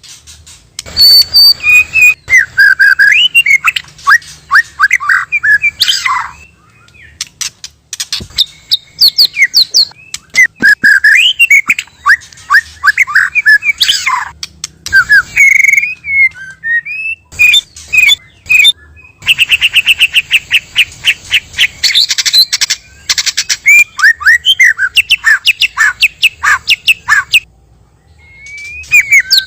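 White-rumped shama (murai batu) singing: loud phrases of rapid, sweeping whistles and chattering notes, broken by short pauses, with a fast run of repeated notes about two-thirds of the way through.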